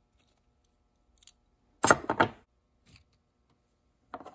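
Small metal parts of a Shimano 600 rear derailleur clinking as the unbolted cage and its pivot spring come apart from the body: a faint click about a second in, a loud cluster of clinks around two seconds, and a few more clinks near the end.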